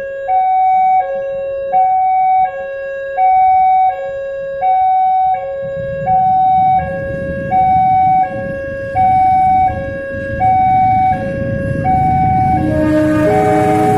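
Electronic warning siren of a railway level crossing, alternating between a high and a low tone, a full high-low cycle about every one and a half seconds. A low rumble builds under it from about six seconds in and grows louder near the end.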